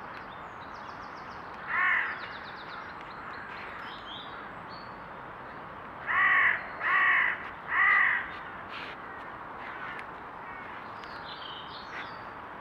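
A crow cawing: one caw about two seconds in, then three caws in quick succession a few seconds later, over a steady background hiss, with faint small-bird chirps higher up.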